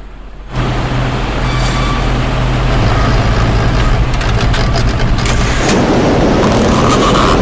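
Loud, steady engine-like rumble with a low hum, cutting in suddenly about half a second in.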